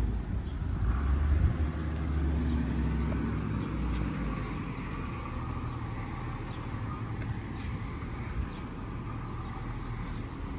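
Garbage truck engine running steadily at a distance, a low rumble.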